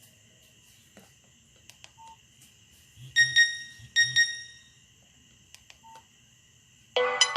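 Two short keypad beeps from a Nokia 6085 mobile phone, a little under a second apart, each with a soft key-press click, over a faint high whine. The next polyphonic ringtone starts loudly near the end.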